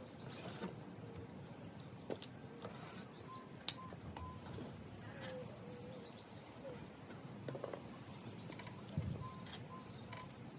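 Faint bird chirps mixed with light clicks and taps of small objects being handled, with one sharp tick a little over a third of the way in.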